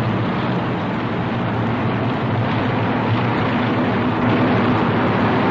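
Steady drone of heavy bomber engines in flight, a dense rushing noise with a low hum beneath it, on an old film soundtrack.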